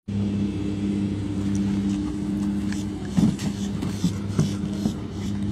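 Steady low machine hum, a running motor or engine holding one even pitch, with a few short taps and scuffs a little past the middle.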